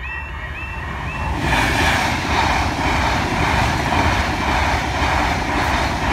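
Level crossing alarm sounding a repeating pattern of short rising tones, about two a second. About a second and a half in, it is drowned out by a passenger train passing over the crossing: a loud, steady rush of wheel and rail noise.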